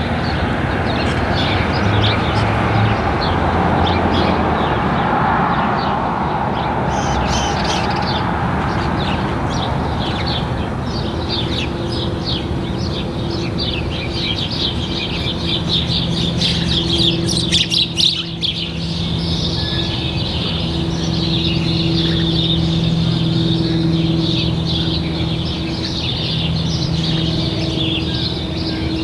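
Distant Cirrus SR22T, a single-engine plane with a four-blade propeller, droning steadily high overhead as a low, even hum that stands out after about ten seconds. A broad rushing noise fills the first ten seconds. Small birds chirp rapidly throughout, most densely from about seven seconds in.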